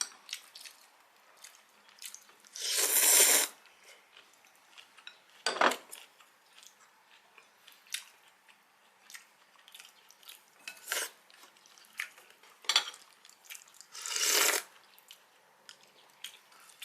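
Utensils clinking and tapping against a bowl in scattered strikes, with two longer noisy sounds of about a second each, one about three seconds in and one near the end.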